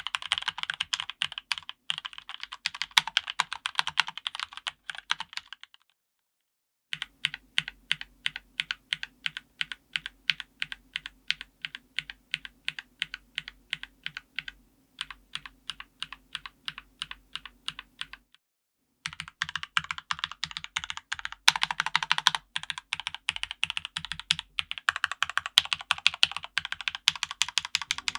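Typing on a Kemove K68 mechanical keyboard with Gateron Red linear switches and low-profile keycaps. Fast runs of keystrokes come at the start and end. In the middle, after a brief silence, there is a stretch of slower, evenly spaced key presses, about three a second.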